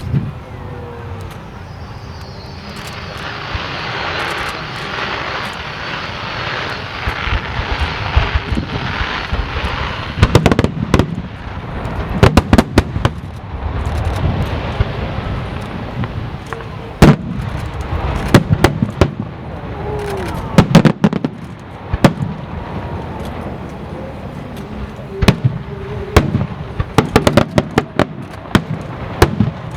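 Aerial fireworks display: several seconds of dense crackling and hissing, then a run of sharp, loud shell bursts, coming thick and fast again near the end.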